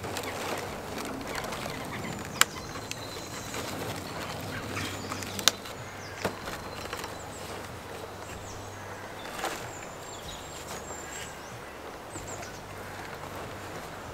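Hand trowel scooping and scraping loose compost from a galvanised metal tub into plastic seed trays, with two sharp clicks about two and a half and five and a half seconds in. Birds chirp in the background throughout.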